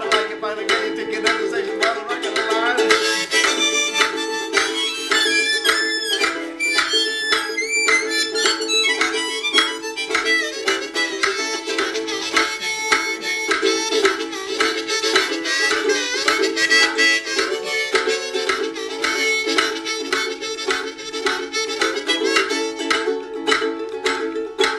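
Harmonica played in a neck rack over a fast, chugging ukulele strum: an instrumental break with sustained chords and sliding, bent notes about three to nine seconds in.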